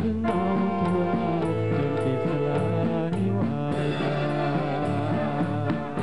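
Big band playing an instrumental passage: saxophone and brass over a drum kit keeping a steady cymbal beat.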